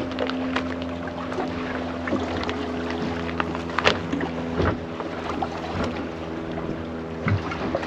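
Sound aboard a small sea-fishing boat: a steady hum of several held low tones, with scattered knocks and clicks from gear on the boat.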